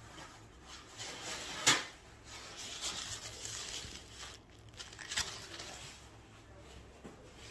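Kitchen handling sounds: a sharp knock about two seconds in, a stretch of rustling, and a second, lighter knock a few seconds later as things are picked up and moved about.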